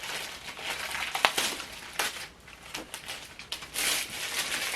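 Cardboard box and packaging being pulled open by hand: rustling and crinkling with scattered sharp clicks, one strong snap about a second in and a louder rustle near the end.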